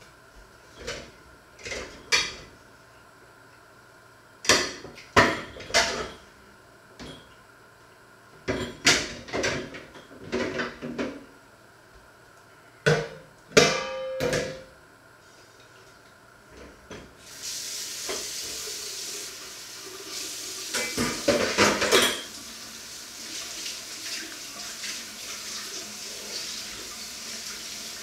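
Dishes and cutlery clattering in short bursts as a plate and pans are handled at the stove. A little past halfway a steady sizzle starts suddenly as food goes into a hot frying pan, with a burst of louder pan clatter a few seconds later.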